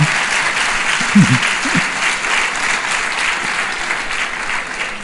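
Audience applauding in a steady, dense wash of clapping.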